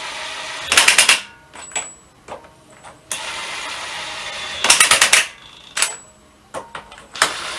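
Power impact wrench tightening wheel bolts. Each bolt gets about a second and a half of steady spinning hiss, then a short burst of rapid hammering as it seats. This happens twice, and a third run starts near the end.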